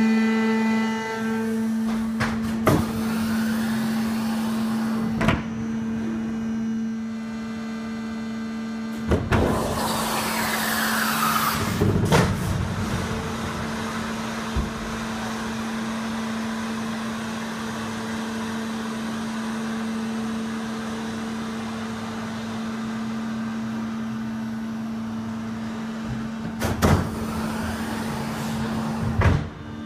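Airbus A330 main landing gear moving under hydraulic power in a gear retraction test: a steady mechanical hum throughout, with several sharp metallic clunks, the loudest about 3, 5, 9, 12, 27 and 29 seconds in, and a falling whine about 10 to 12 seconds in.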